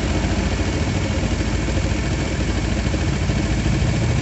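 Yamaha Jupiter MX's liquid-cooled single-cylinder four-stroke engine idling steadily when hot, with its radiator cooling fan running, switched on by itself because the engine has got too hot.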